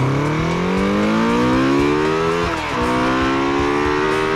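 Kawasaki Z400F-II's four-cylinder engine accelerating hard, its pitch climbing through the revs, with an upshift about two and a half seconds in, after which it climbs again.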